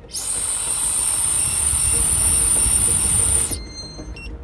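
A loud, steady rushing hiss with a high whine on top, cutting in just after the start and stopping abruptly about three and a half seconds later.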